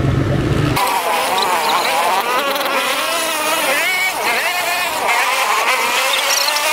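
ATV engine running on a rough dirt trail, its pitch rising and falling as the throttle changes. A deep low rumble drops away abruptly a little under a second in.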